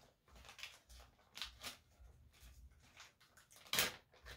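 Clear plastic bag crinkling and rustling as it is handled and opened, in short irregular bursts, with one sharper, louder crinkle near the end.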